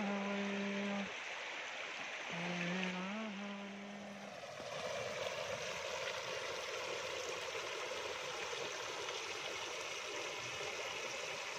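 River water rushing over a large pipe and churning into foam, a steady rush from about four seconds in. Before that, two long held notes, each with a brief upward lilt, sound over softer water noise.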